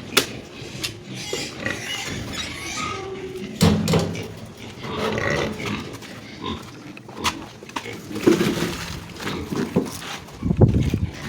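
Pigs grunting in several short bouts, the loudest near the end, with many sharp clicks and knocks in between.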